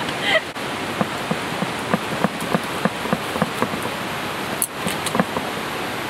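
Steady hiss of water, with scattered drop-like ticks landing several times a second.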